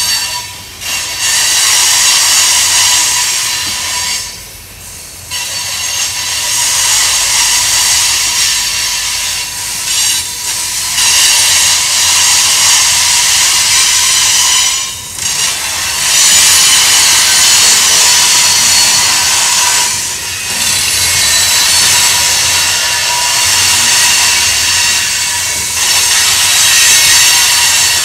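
Freight cars (covered hoppers, then tank cars) rolling past on a curve, their steel wheels squealing against the rail in a loud, steady high-pitched hiss with a thin whine running through it. The level drops briefly a few times as the cars go by.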